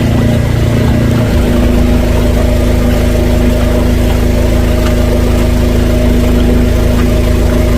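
Drain jetter's engine running steadily under load, its note shifting slightly about a second in.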